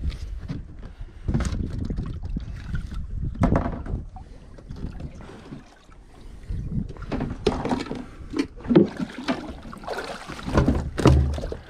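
Water lapping and splashing at the side of a small aluminium skiff, with wind on the microphone and irregular knocks from a rod and reel being worked. Near the end a fish splashes as it is lifted out of the water.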